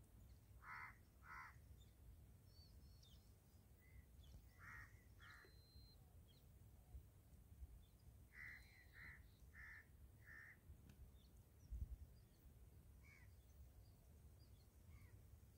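Faint crows cawing in short, harsh calls: a pair near the start, another pair about five seconds in, then a run of four, with fainter calls later. A steady low wind rumble sits underneath.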